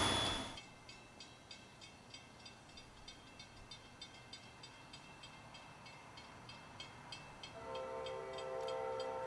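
Train horn: a blast cuts off about half a second in, then a faint bell rings steadily about twice a second. The horn sounds again as a chord about seven and a half seconds in, held for about two seconds.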